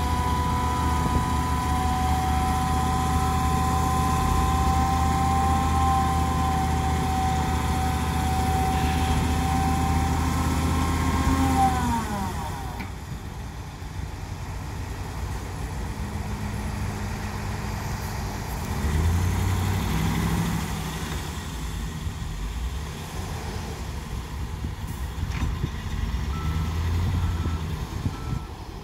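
Semi-trailer dump truck's engine held at raised revs with a steady high hydraulic-pump whine while the tipper bed is hoisted and dumps sand; about twelve seconds in the revs and whine glide down together and the engine drops back to a lower rumble. Near the end a reversing alarm starts beeping.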